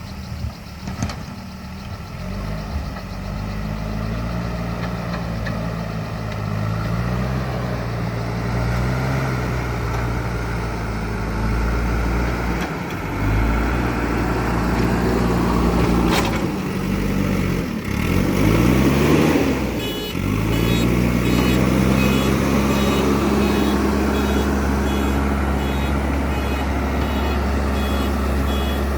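JCB 3DX Super backhoe loader's diesel engine working under varying load, its pitch rising and falling as it revs up and eases off, with a sharp knock near the middle. About two-thirds of the way through, the machine's reversing alarm starts beeping in a steady series as it backs up.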